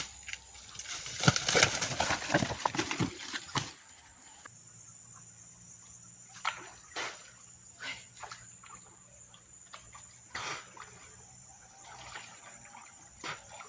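Insects calling in a steady high-pitched pulsing drone, broken by a few sharp clicks. About a second in, a loud burst of rustling and knocking lasts a couple of seconds.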